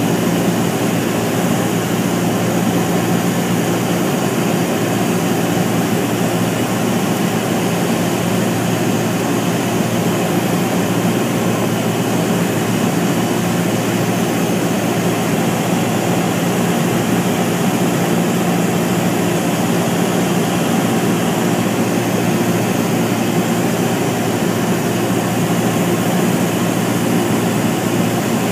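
Single-engine piston airplane's engine and propeller heard from inside the cockpit, a loud steady drone with no change in pitch, power held constant on an instrument approach.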